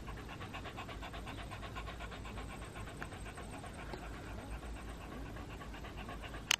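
A dog panting quietly in quick, even breaths over a low steady rumble.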